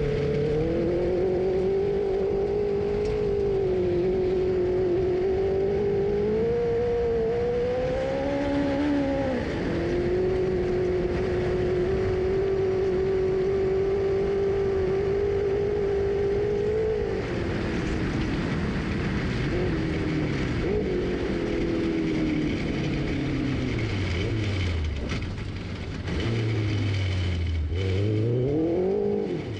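Cross kart engine running under load at high, steady revs, with a brief dip partway through. Just over halfway it eases off, then revs up and down several times near the end.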